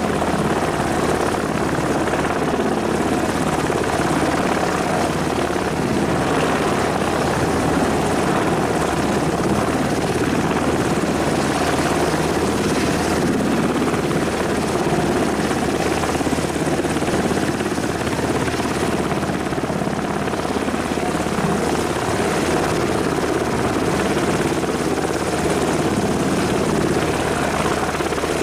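Sikorsky Seahawk helicopter running steadily on the ground, its twin turboshaft engines and turning main and tail rotors making a continuous, even rotor and turbine noise.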